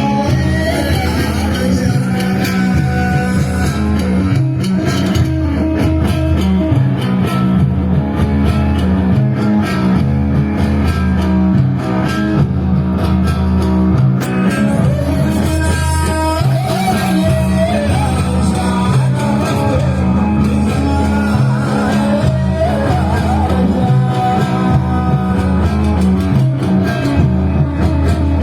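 Band music with an electric guitar melody over a steady, repeating bass line, playing without a break.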